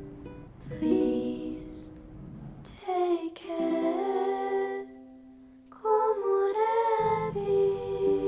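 Background music: a gentle ukulele song with a voice singing a few phrases.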